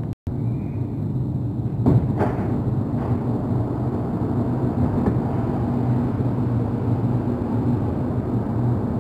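Steady low hum inside a stationary Alstom AS-2014 metro car standing at a platform, with two short knocks about two seconds in.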